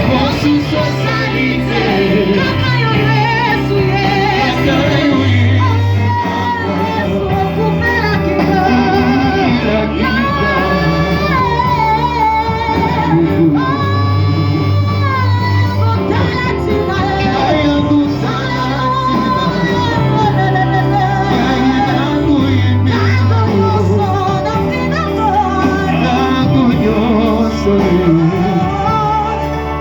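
Church worship music: voices singing a melody over a band with a steady bass line, the bass notes changing every couple of seconds.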